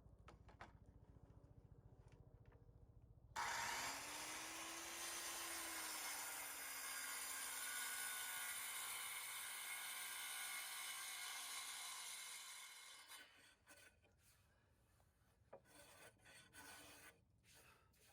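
A power tool cutting wood: a sudden, steady cut for about nine seconds, with a motor tone that rises and then slowly sags, dying away gradually. A few light knocks and clicks follow near the end.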